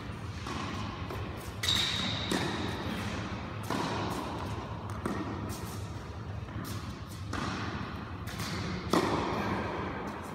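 Tennis balls struck by racket strings and bouncing on the court, a sharp knock every second or so, each ringing on in the echo of a large hall. A brief high squeak about two seconds in.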